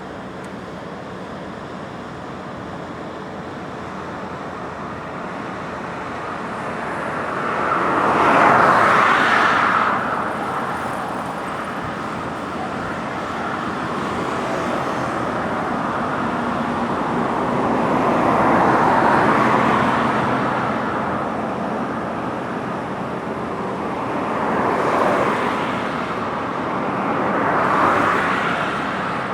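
Road traffic on a bridge: vehicles swell past and fade over a steady background hum, the loudest about eight seconds in, then again around nineteen, twenty-five and twenty-eight seconds.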